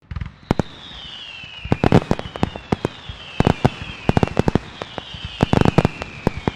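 Fireworks sound effect: a run of overlapping whistles, each falling in pitch, with clusters of sharp cracks and bangs throughout.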